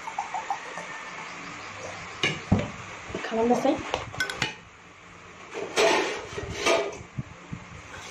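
Juice poured from a carton into a glass at the start, then glass and tableware knocking and clinking on a table, with a few sharp knocks spread through.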